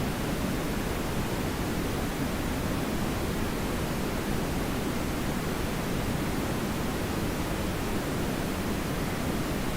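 Television static: a steady, even rushing hiss of noise that does not change.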